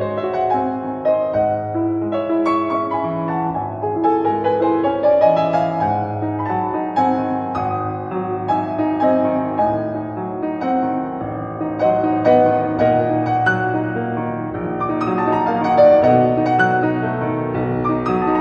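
Background instrumental music led by piano, a steady flow of notes with a rising run about four seconds in.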